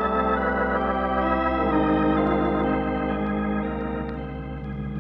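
Organ music bridge marking a change of scene: held organ chords that shift to a new chord about a second and a half in and ease off toward the end.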